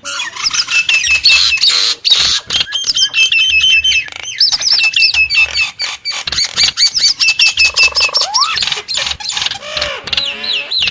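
Nias hill myna calling: long runs of short, high notes repeated rapidly, with a lower rising whistle about eight seconds in.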